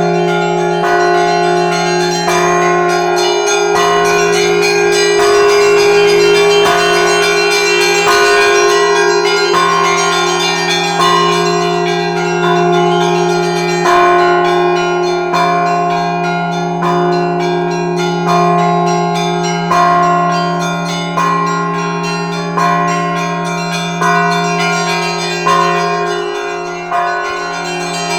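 Russian Orthodox church bell ringing (zvon) played by one ringer. Smaller bells ring quick patterns over the lasting hum of the larger bells. In the second half the strikes settle into a regular beat about every second and a half.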